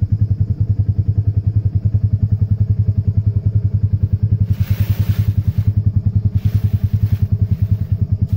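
The Ranger's engine idling with a steady, rapid low pulsing. About halfway through there are two brief hissing rustles.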